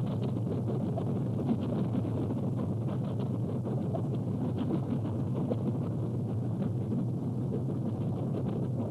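A steady, low rumbling noise with a crackly texture and faint ticks throughout, with no music or speech.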